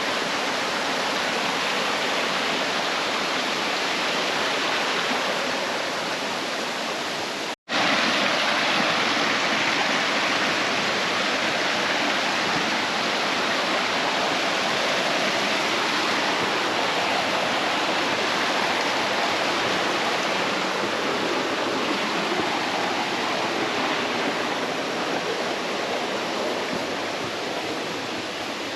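Steady rush of flowing stream water, cutting out for an instant about seven and a half seconds in.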